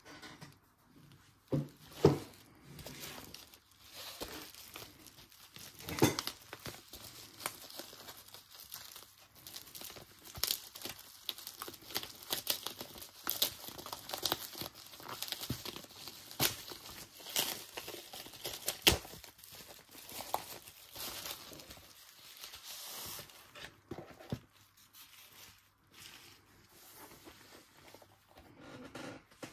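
Plastic bubble wrap crinkling and tearing as it is pulled off a small cardboard box by hand. There is a steady run of sharp crackles, with the loudest ones about two seconds in, about six seconds in and again near nineteen seconds.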